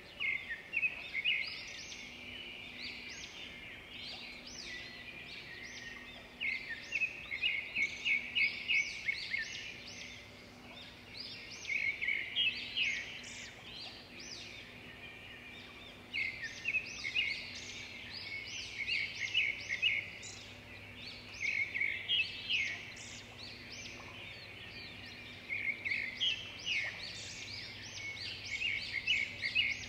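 Songbirds chirping and trilling in quick high phrases of a second or two, with short pauses between them.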